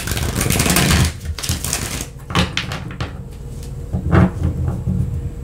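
A tarot deck being shuffled by hand, the cards flicking against each other: a long run of rapid card flutter in the first second, then shorter shuffles about two and four seconds in.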